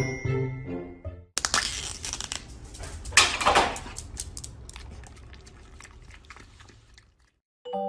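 Bell-like music for about the first second, cut off abruptly. Then crinkling and crunching of a yogurt cup's peeled lid held in a person's hands while a dog licks at it, a run of crackly clicks that is loudest about three seconds in and fades away near the end.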